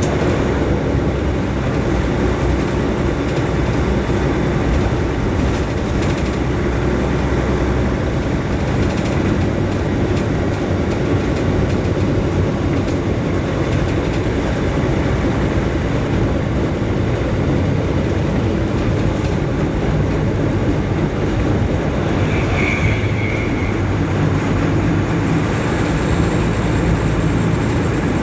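Steady low drone of a vehicle engine running in road traffic, heard from a moving vehicle. A brief high tone sounds about 22 seconds in, and a thin high whine comes in near the end.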